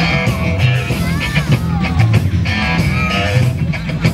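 Rock music with guitar and a singing voice over a steady beat.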